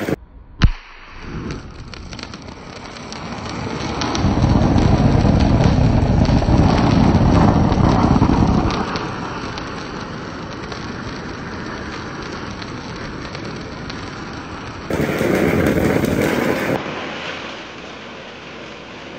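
Ground fountain firework spraying sparks with a steady rushing hiss, set off by a remote electric igniter. A single sharp crack comes about half a second in. The hiss grows louder a few seconds in, eases off, then has a second brief loud stretch near the end.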